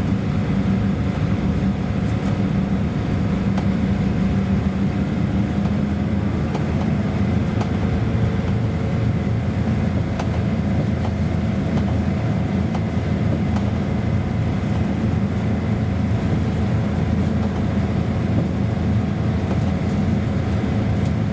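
Passenger train running steadily along the track: a continuous rumble with a steady low hum.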